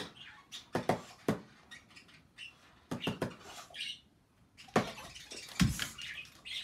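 A spoon tapping a hot chocolate container used as a drum, in irregular clusters of sharp taps, with a heavier thump about five and a half seconds in. Between the taps a French Bulldog–Beagle cross gives short high-pitched whines.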